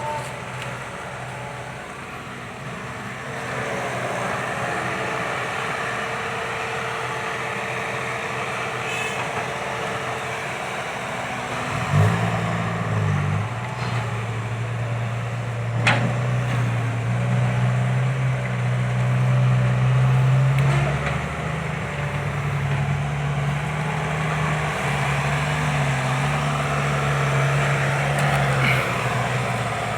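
Heavy diesel machinery at work: engine noise runs throughout, and about twelve seconds in a louder, low diesel engine note comes in, stepping up and down in pitch as it works until near the end. Sharp knocks sound about twelve and sixteen seconds in.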